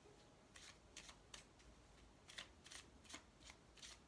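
A deck of oracle cards being shuffled by hand: faint, irregular soft swishes and taps of the cards, about a dozen in four seconds.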